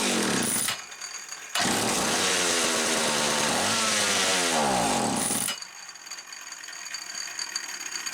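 Homelite 360 two-stroke chainsaw engine firing briefly and dying within the first second. It fires again about a second and a half in, runs for about four seconds, then winds down and stalls. The saw acts like it is starving for fuel.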